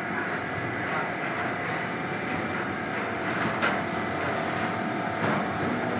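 Citrus washing and sorting conveyor machine running with a steady mechanical rattle as fruit rolls over its stainless-steel trays, with two sharp knocks, one about three and a half seconds in and another about five seconds in.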